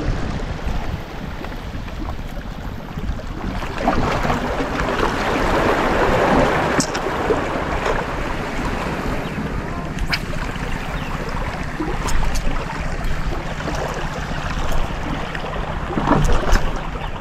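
Wind buffeting the microphone over small sea waves washing against shoreline rocks, swelling in the middle. A few light clicks and a faint steady low hum in the second half.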